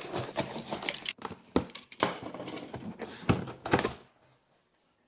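Cardboard product packaging being handled and opened: several dull thuds and knocks with rustling and scraping of cardboard, stopping abruptly about four seconds in.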